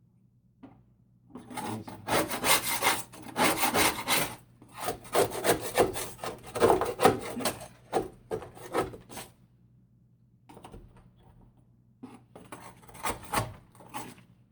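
Rough scraping and rubbing on the rusted cab floor of a truck, in quick strokes for about eight seconds. After a pause, there are a few more strokes near the end.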